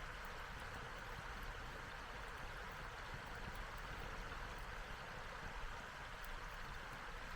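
Wood campfire burning: a steady hiss with faint, scattered crackles and pops from the burning wood, possibly with wind in the trees blended in.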